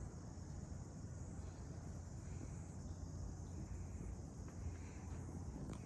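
Steady high-pitched insect chorus, with a constant low rumble underneath.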